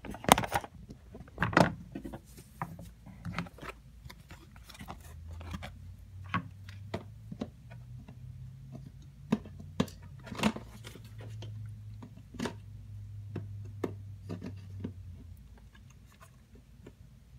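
A camera is set down on a table with a few knocks, followed by scattered clicks, taps and knocks of objects being handled. A low hum runs through the middle and fades out near the end.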